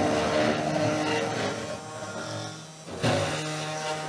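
Spindle motor of a Genmitsu 3018 PROver desktop CNC router, set to 10,000 RPM, running with a steady whine as a 1/8 inch end mill cuts thin polycarbonate sheet. The sound fades about two seconds in and comes back abruptly about three seconds in.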